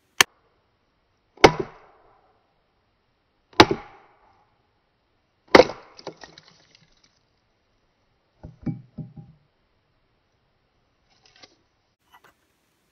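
A hatchet striking a wooden stick used as a punch, driving the charred stub of the old handle out of an axe head's eye after it has been burned out: four sharp wooden knocks about two seconds apart, then a few lighter knocks and rattles.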